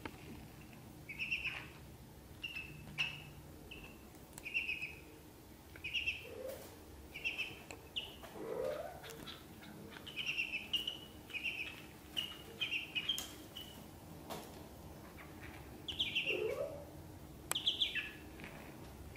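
Ducklings peeping: a string of short, high chirps, a couple every second in loose clusters, with a few lower, rising calls among them.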